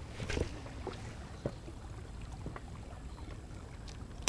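Steady low wind and water noise around a small boat, with a few short clicks and knocks, the sharpest one near the end.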